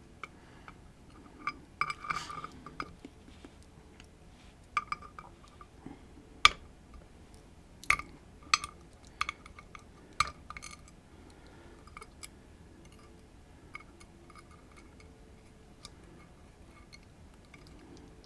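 Small metal lock parts clicking and clinking as a Lockman Megacross lock is taken apart by hand. The clicks come in irregular clusters, with a few sharper clinks in the middle and only scattered ticks near the end.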